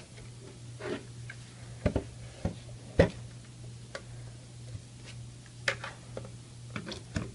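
Irregular plastic clicks and knocks from handling a plastic wall-wart power adapter and its cord, the sharpest about three seconds in, then a few clicks near the end as the adapter is pushed into a power-strip outlet. A steady low hum runs underneath.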